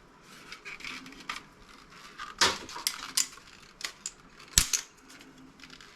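Scrap parts from a dismantled CRT monitor clicking and clinking as they are handled and set down: scattered irregular knocks, with two louder clacks about two and a half and four and a half seconds in.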